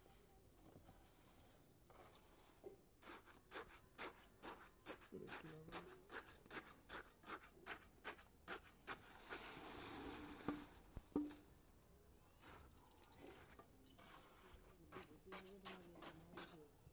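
Faint scraping and tapping of hand tools working wet concrete mix, in quick strokes at about two or three a second, with a longer continuous scrape near the middle.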